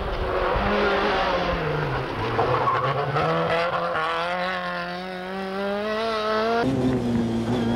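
Peugeot 309 GTI rally car's engine at high revs, wavering at first and then rising steadily in pitch as it accelerates hard. It breaks off abruptly near the end, giving way to a steadier tone.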